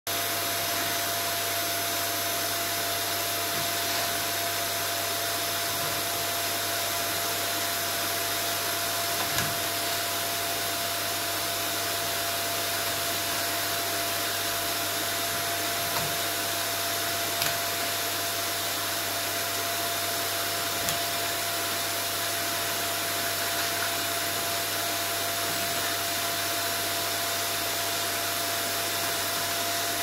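Vacuum cleaner running steadily with a constant whine, and a few brief knocks now and then.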